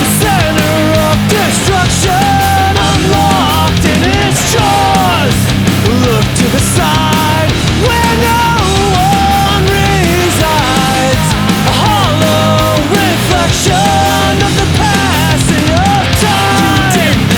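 Loud, fast melodic punk rock with heavy-metal riffing: distorted guitars, bass and drums playing steadily, with a bending melody line on top and no words heard.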